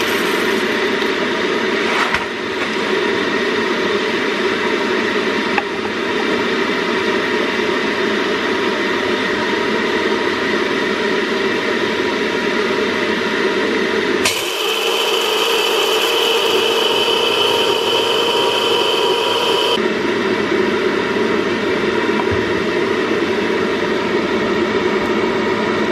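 Old Soviet electric coffee grinder running steadily as it grinds coffee beans. About halfway through, the sound shifts to a higher-pitched whine for around five seconds, then returns to the lower running sound.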